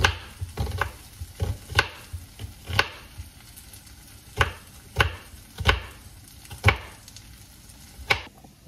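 Knife chopping an onion on a bamboo cutting board: about ten sharp knocks at an uneven pace, with a pause around the middle. Peppers and onions sizzle faintly in a frying pan underneath.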